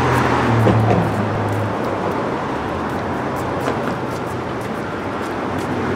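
Steady city street traffic noise, with a vehicle engine's low hum that fades about two seconds in.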